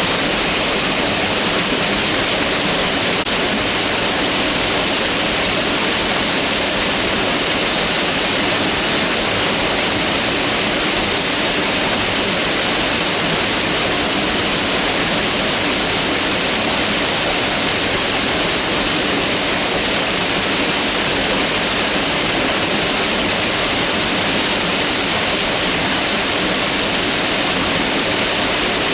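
Mountain river rushing over rocks: a loud, steady roar of running water that does not change.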